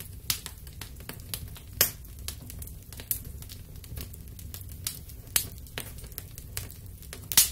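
Kerosene burning inside carved pumpkins, crackling and sizzling with irregular sharp pops over a low steady rumble; one loud pop about two seconds in and another near the end.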